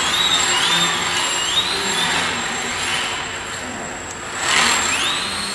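Homemade CNC machine running: its stepper motors whine in pitch glides that rise and then hold, about once a second, over a steady machine noise.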